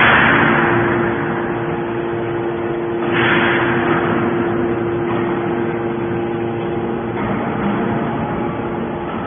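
Hydraulic scrap metal baler running: a steady machine hum, with two surges of rushing noise, one at the start and another about three seconds in, each fading over a second or two.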